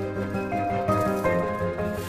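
Background music: a light tune of pitched notes over a steady beat.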